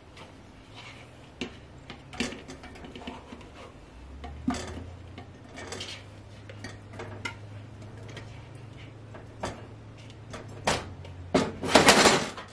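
Squeezed lemon peels being tipped and scooped from a bowl into a large glass jar: scattered soft clinks and knocks of the bowl and peels against the glass, with a louder clatter near the end.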